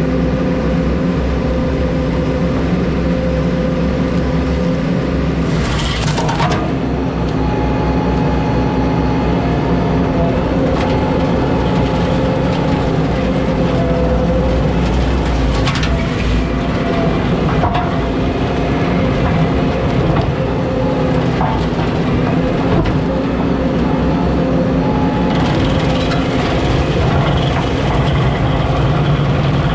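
Chainsaw running steadily at high revs while cutting up a stump, with a couple of sharp cracks about six and sixteen seconds in.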